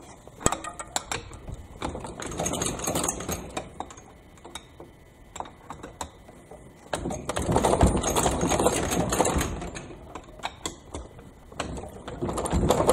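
Hand ratchet wrench clicking in three runs of rapid ticks, with scattered metal clinks between them, as bolts are worked loose on a 283 small-block Chevy engine.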